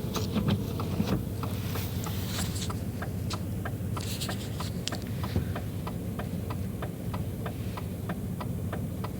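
Car engine idling steadily, with an even, rapid ticking of about three clicks a second over it.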